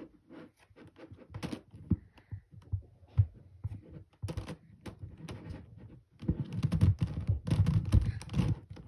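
Gigaminx, a 5x5 dodecahedral twisty puzzle, being turned by hand: quick plastic clicks and clacks of its layers turning, sparse at first, then a denser, louder run of turns from about six seconds in.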